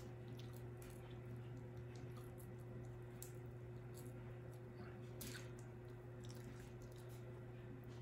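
Faint close-up eating sounds: wet chewing and small squishy clicks as crab is picked apart by hand, over a steady low hum.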